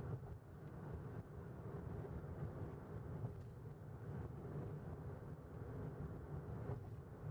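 Steady low rumble of a car driving at highway speed: tyre and road noise with engine hum.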